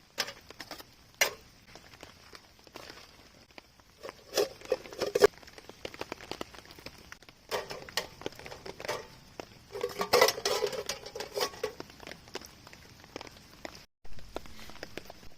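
Rain pattering on a tarp, with irregular sharp taps and a few short bursts of clattering and rustling. The sound drops out briefly near the end and changes.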